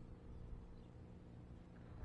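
Near silence outdoors, with only a faint low rumble.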